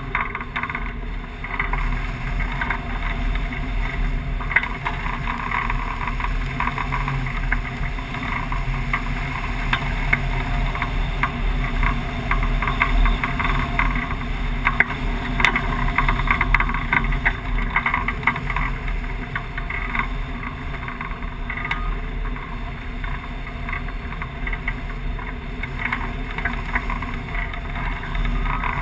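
Airflow rushing over a wing-mounted camera on a hang glider in soaring flight: steady wind noise with a low rumble and irregular crackling buffets.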